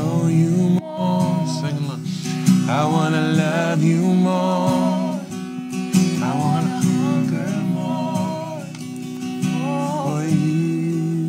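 Acoustic guitar strummed as accompaniment to a young woman singing a slow melody. She sings in several held, wavering phrases with short breaks between them.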